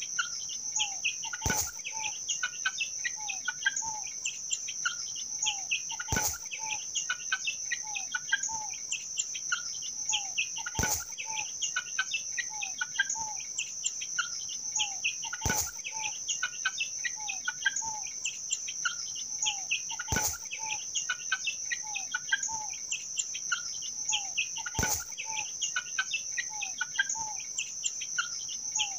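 Free-range chickens and chicks peeping and calling softly while feeding, over a steady high insect drone. A sharp click comes about every four to five seconds.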